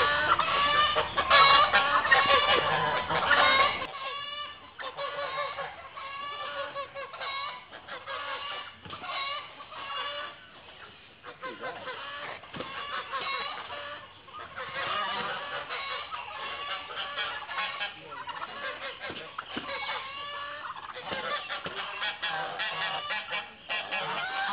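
Geese honking over and over in a fight with a tom turkey, many calls overlapping. Loudest in the first four seconds, then continuing with short gaps.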